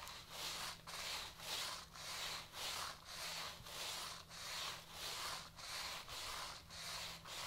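Stiff-bristled deck scrub brush scrubbing a wet, greasy tiled floor soaked with degreaser solution. It goes in even back-and-forth strokes, about two a second.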